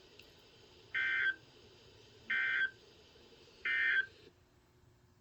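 Three short bursts of EAS digital data tones, about a second apart: the SAME End of Message code that closes the severe thunderstorm warning.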